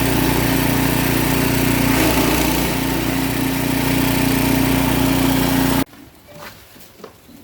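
Grinding machine for grass and peanut stalks running steadily with a loud mechanical hum. It stops abruptly about six seconds in, leaving only faint sounds with a few light clicks.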